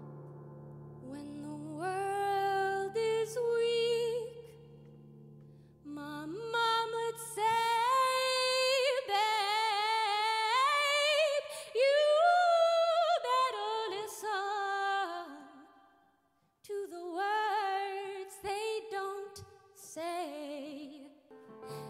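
A woman singing unaccompanied in three long phrases with a wavering vibrato, with short breaks between them. A held piano chord dies away under the first phrase.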